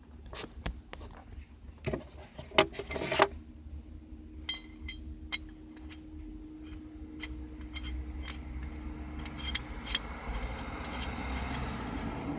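Metal hand tools and hardware clinking and knocking as they are handled: several sharp knocks in the first three seconds, then lighter, bright clinks. A faint steady hum comes in after about three seconds.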